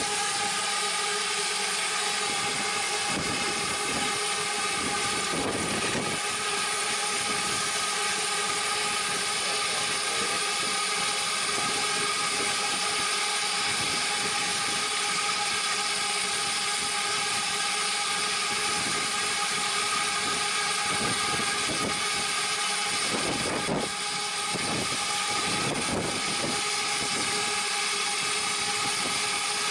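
Steady whining hum of a motor-driven fan, the kind used to draw the fire while raising steam on a miniature locomotive. A few knocks and clanks come about five seconds in and again later on.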